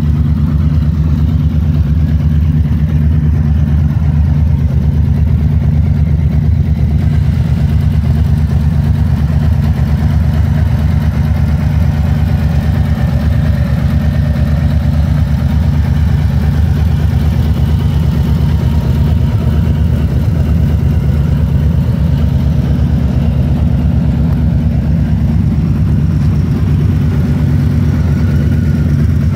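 Harley-Davidson Street Bob's Milwaukee-Eight V-twin idling steadily, with an even, unchanging low beat and no revving.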